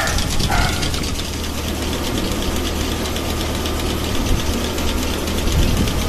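Milking machine's motor and vacuum pump running steadily, with a low hum and a fast, even pulsing, while cows are being milked.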